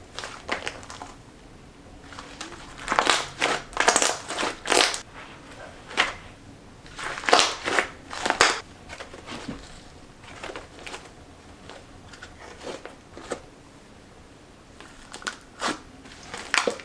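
Cloud-cream slime being squeezed and stretched by hand, crackling and popping in short clusters: a run a few seconds in, another near the middle and a third near the end.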